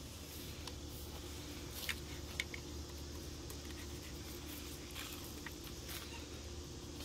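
Faint, scattered light clicks and taps of a tape measure and pencil being handled against a boxed faux wood blind while measuring and marking, over a steady low hum.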